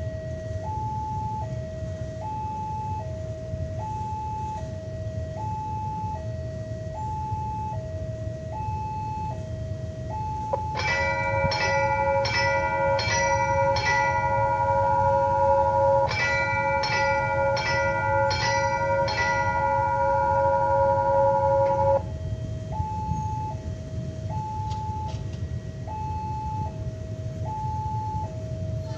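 Railway level-crossing warning signal (genta) sounding: a two-tone alarm alternating high and low about once a second. About eleven seconds in, a louder bell starts, struck in two fast runs of about six strokes each. Its ringing tones hold on and then stop abruptly.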